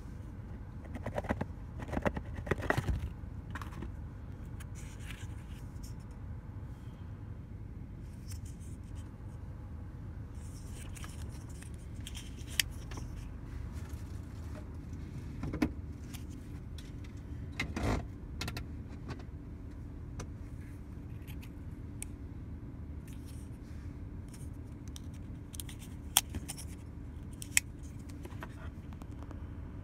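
Handling of a Benchmade 535 Bugout folding knife and its cardboard box: rustling and scraping of the box in the first few seconds, then scattered sharp clicks of the knife's AXIS lock as the blade is swung open and shut, a pair of them near the end. A steady low rumble of the car cabin runs underneath.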